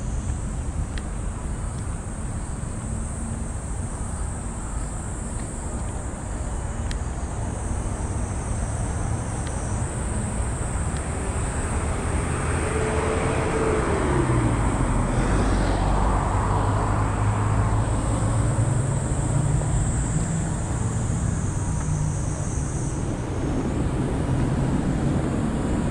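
Road traffic going by, with one vehicle passing about halfway through: its engine note falls as it passes and gives way to a low engine drone. A steady high buzz of summer cicadas sits over the traffic.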